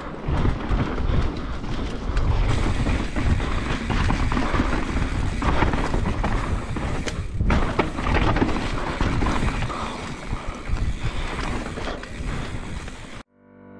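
Mountain bike riding fast down a dirt trail, heard from a camera on the rider: tyres rolling over dirt and stones, the bike knocking and rattling over bumps, and a low rumble of wind on the microphone. Just before the end it cuts off and music starts to fade in.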